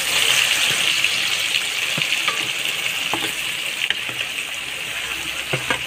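Marinated soya chunks dropped into hot oil in a wok, sizzling. The sizzle is strongest as they go in and slowly dies down, with a few light clicks of a steel spatula against the pan.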